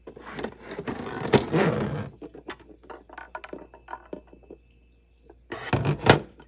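Hard plastic parts of a small dehumidifier being handled: scraping and rustling over the first two seconds, scattered light clicks, then two loud knocks near the end.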